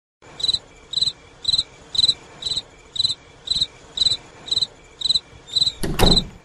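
Crickets chirping steadily, about two high chirps a second. A short loud hit cuts in near the end.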